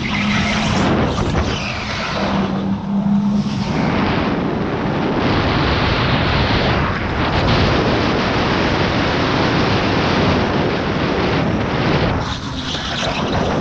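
Electric go-kart driven hard, heard from on board: a loud rush of wind on the microphone mixed with tyre and chassis noise. A steady low hum sits under it for the first three or four seconds.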